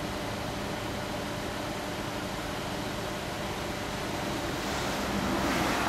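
Steady road traffic noise with a low engine hum; a passing vehicle swells up near the end and fades.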